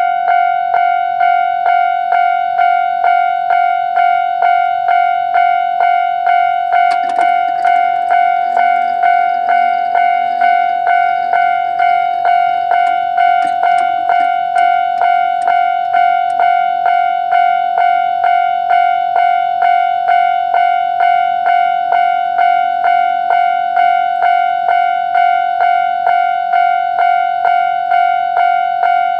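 Japanese railway level crossing warning alarm, sounding in its normal tone: a loud ringing note struck over and over in a fast, even rhythm, warning that a train is approaching. A few short clanks and rattles sound over it from about seven seconds in.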